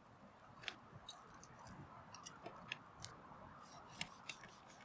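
Charcoal fire with a beef steak grilling on it: faint, irregular clicks and crackles over a soft steady hiss, with a few sharper pops.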